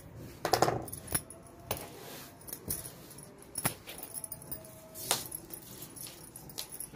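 Cloth being folded and handled on a tailoring table: a rustle about half a second in, then scattered light clicks and taps.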